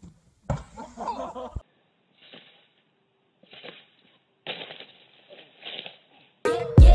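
A brief burst of voices, then scattered clattering and rattling from a backyard trampoline as someone flips on it and crashes off. Music starts just before the end.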